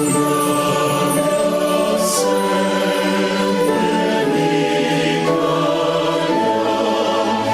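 Choral gospel music: voices singing long held chords over accompaniment, the chord changing every second or so.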